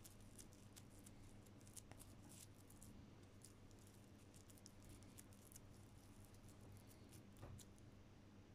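Near silence: room tone with a faint steady low hum and scattered faint ticks.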